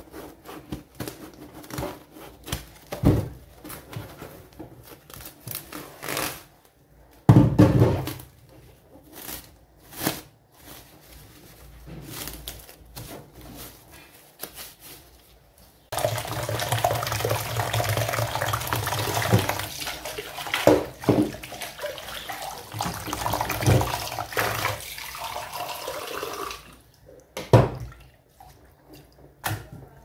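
Kitchen handling noises: cling film and plastic rustling and clicking, with a thump about seven seconds in. About halfway through, water starts running steadily into a plastic basin in a stainless-steel sink, lasts about ten seconds as greens are washed, and stops suddenly, followed by a few light knocks.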